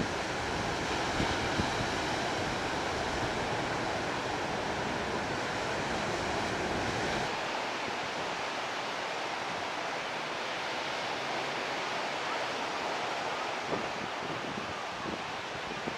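Surf breaking on a sandy beach, a steady rushing hiss, with wind rumbling on the microphone. About seven seconds in, the low wind rumble drops away and the surf hiss carries on.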